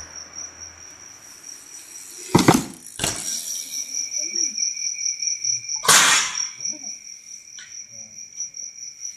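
Crickets chirping steadily, a high pulsing trill, with a second, lower steady insect call joining about three and a half seconds in. Two loud rushing noise bursts cut across it, about two and a half and six seconds in.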